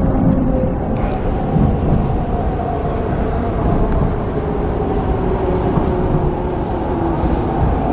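MTR East Rail Line R-train electric multiple unit running, heard from on board: a steady rumble from the wheels on the rails with an electric traction motor whine whose pitch drifts slowly down as the train slows on its approach to a station.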